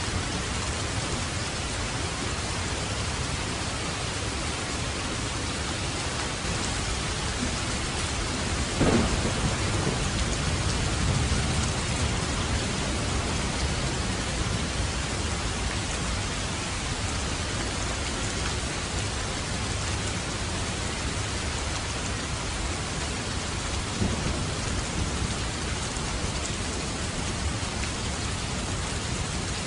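Steady rain, with a sudden crack of thunder about nine seconds in that rumbles on for a few seconds. A second, smaller clap comes later.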